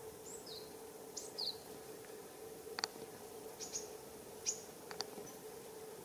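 Tits in a mixed foraging flock giving about five short, thin, high calls, each sliding down in pitch. Two sharp taps stand out, one near the middle and one near the end.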